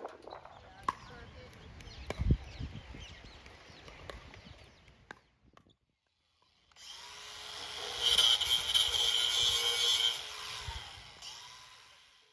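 Cordless drill running at high speed for about five seconds, a loud steady high whine that winds down near the end. Before it, a quieter stretch with a few sharp clicks.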